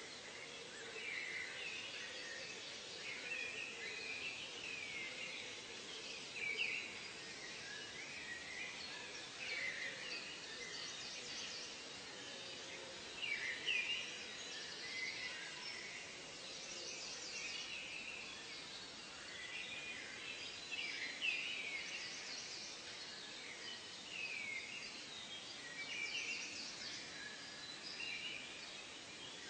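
Several birds calling, with many short overlapping chirps and whistles and now and then a louder call, over a steady background hiss.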